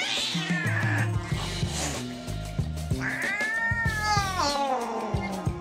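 Angry tabby cat, held down by the scruff, yowling: one long drawn-out yowl rising to its end about half a second in, then a second long yowl from about three seconds in that falls in pitch as it ends. Background music plays underneath.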